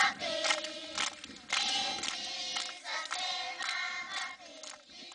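A choir of schoolchildren singing together as a welcome song.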